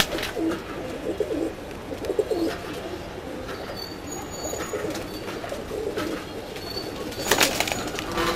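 Domestic pigeons cooing in low, repeated calls, with a short, louder burst of noise about seven seconds in.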